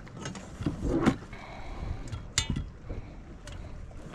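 Several knocks and clatters of a caught crappie being handled and laid out for measuring in a small fishing boat, the sharpest about two and a half seconds in, with a brief thin whine in the middle. Wind and water run underneath.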